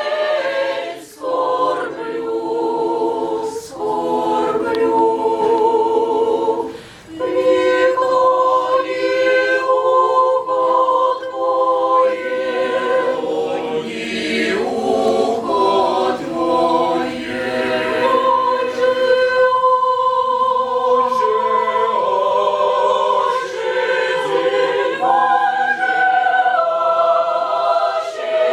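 A small church choir singing a cappella, several voices in held chords with slow changes of pitch. There are short breaths between phrases about a second in and about seven seconds in.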